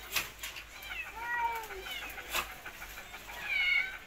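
Several short, high-pitched animal cries that arch up and down, the loudest and highest near the end, with scattered clicks and scuffles.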